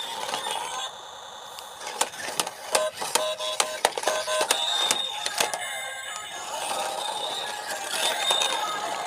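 Electronic music with bleeping tones, over a run of sharp plastic knocks and clatter as a toy stunt car tumbles and flips on paving, busiest in the middle.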